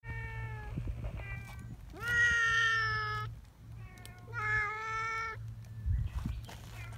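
A cat meowing several times in a row; the loudest meows, about two seconds in and again near the middle, are long and drawn out, each over a second.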